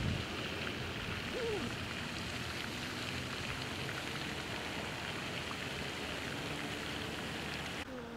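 Steady outdoor background hiss, like light rain or wind, with a faint short pitched call about a second and a half in. It turns quieter just before the end.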